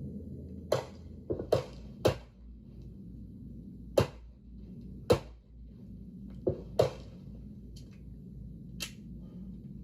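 Gunshots at a shooting range: about ten sharp shots at irregular spacing, some in quick pairs, the last two fainter.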